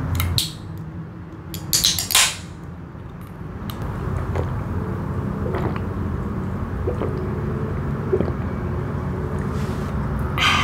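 Aluminium drink can opened by its pull-tab, with sharp clicks and a short crack-and-hiss about two seconds in, followed by small gulping and swallowing sounds as the drink is drunk from the can.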